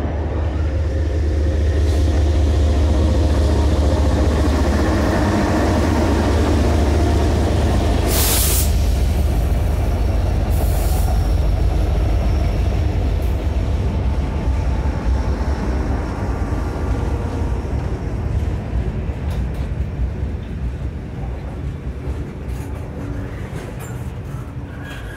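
Several Norfolk Southern diesel-electric locomotives running elephant style, the Savannah & Atlanta heritage unit among them, passing close by, with a heavy engine rumble. Two short bursts of hiss come about 8 and 11 seconds in. The rumble eases off near the end as the last locomotive clears and the double-stack cars begin to roll by.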